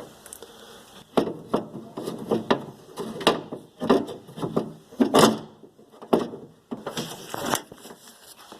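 A replacement exterior car door handle being worked into its opening in the door, with an irregular run of clunks, knocks and scraping rubs against the door.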